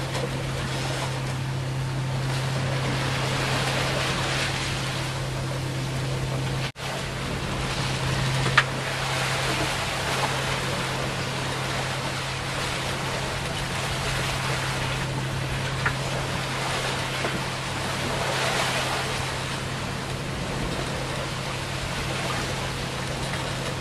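Sea water rushing and breaking along the hull of an Outbound 44 sailboat under way in rough seas, swelling louder and softer with each wave, over a steady low hum.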